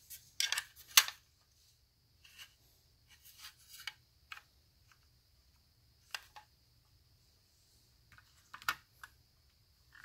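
Scattered light clicks and rustles of small computer parts and cables being handled by hand, the loudest about a second in, with more around the middle and near the end.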